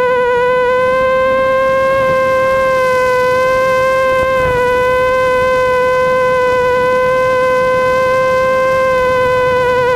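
Brushless motors and props of an ImmersionRC Vortex FPV racing quadcopter whining at a nearly steady pitch in flight, wavering slightly near the end with small throttle changes.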